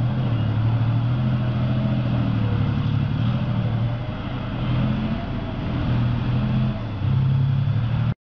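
An engine running steadily, its pitch and load rising and falling a little; it cuts off suddenly near the end.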